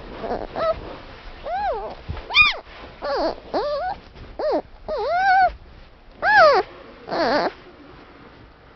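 A young animal, such as a kitten or puppy, crying out again and again: about ten short cries that rise and fall in pitch, stopping about seven and a half seconds in.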